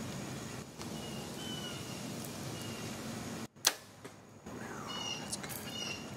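Bowtech compound bow being shot: a single sharp snap of the string releasing an arrow, a little past halfway.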